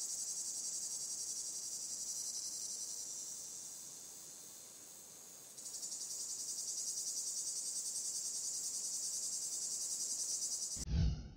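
Insects chirring: a steady, high-pitched shrill with a fast pulse, dipping a little in the middle. Near the end a much louder whoosh cuts in.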